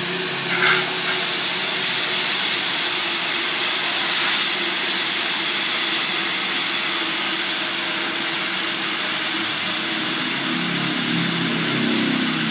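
Compressed-air firefighting skid unit discharging through its hose nozzle: a loud, steady rushing hiss, with a steady low engine hum underneath.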